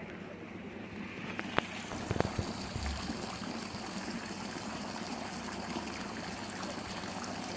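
Water falling from inlet pipes into a tarpaulin fish tank, a steady trickling and splashing. A few sharp knocks come about 1.5 to 3 seconds in.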